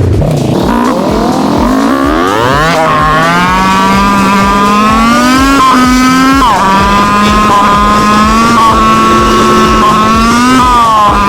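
Kawasaki Z400 parallel-twin motorcycle engine under way. It accelerates with its pitch climbing over the first few seconds, then runs at steady revs. The pitch drops quickly about halfway through and again near the end as it shifts up.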